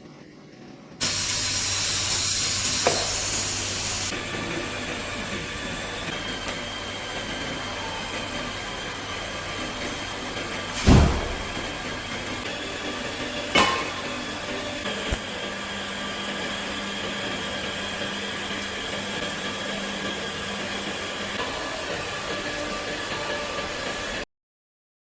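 Pipe orbital automatic welding machine running: a steady hiss over a low hum, starting about a second in, with two short thumps in the middle. It cuts off suddenly near the end.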